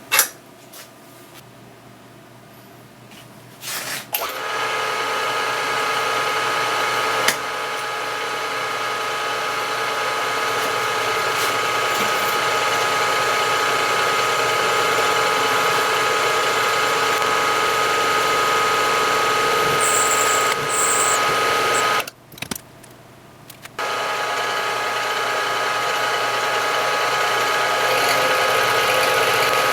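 Small machine tool's electric motor running steadily with a high whine, starting about four seconds in, stopping briefly a little past the middle and starting up again.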